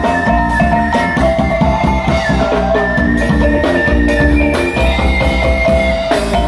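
Talempong, the Minangkabau row of small bossed gongs in a wooden frame, struck rapidly with two sticks in a bright ringing melody. It plays with a band: electric guitar, drum kit and a strong bass line.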